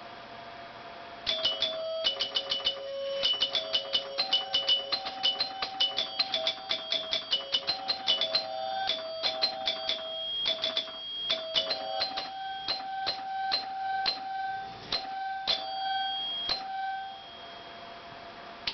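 The chimes of a 1975 Bally Wizard pinball machine ringing in quick irregular strikes on a few different notes, mixed with rapid relay clicking, starting about a second in and stopping near the end: the machine's alarm going off.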